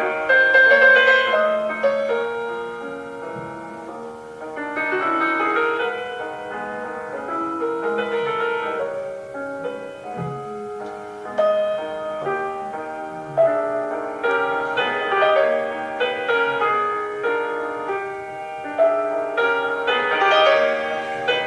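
Classical piano music: a slow, flowing solo piano piece with sustained chords and a melody above.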